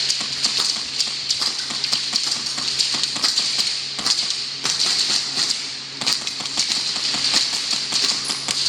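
Airsoft gun firing a string of shots, sharp clicks coming irregularly several times a second.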